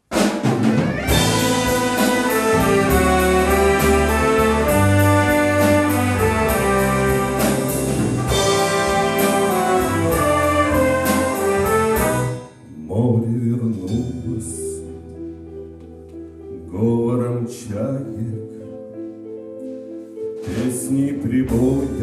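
Live orchestra with brass, saxophones, violins and drum kit playing the instrumental introduction of a song: loud and full with a steady cymbal beat, then dropping suddenly about twelve seconds in to a quieter passage of held notes with a few cymbal strokes.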